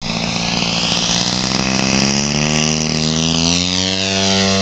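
Edge 540 3D RC aerobatic model plane in flight, its engine and propeller giving a steady drone. The pitch rises slightly in the second half.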